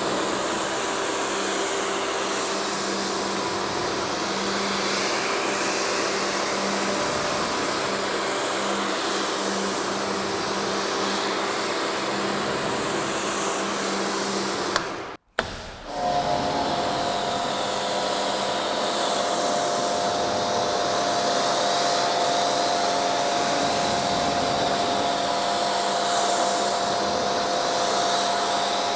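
Electric pressure washers running and spraying water onto car paint, a steady hiss of spray over a motor hum. The sound cuts out briefly about halfway through, then resumes with a different, steadier motor tone as the next machine takes over.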